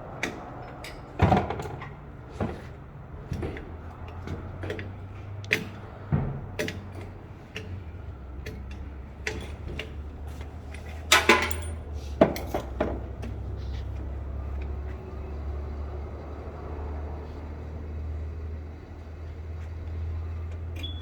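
Tire-shop work noise: scattered sharp metallic clanks and knocks of tools and wheel parts over a steady low machine hum. The loudest knock comes about a second in, and a brief loud burst comes about eleven seconds in.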